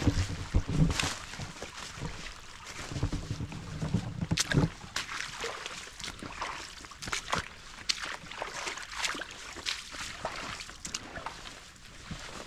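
Footsteps crunching and rustling through dry fallen leaves, an irregular run of crackles, with low bumps on the microphone near the start and about four seconds in.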